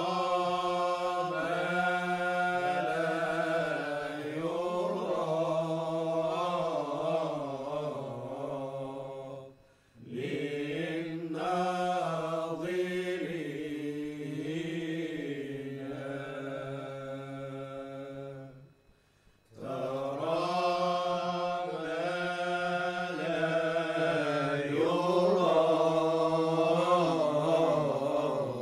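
Sufi chant from Cairo: voices singing long, wavering phrases, breaking off briefly about ten seconds in and again just before twenty seconds.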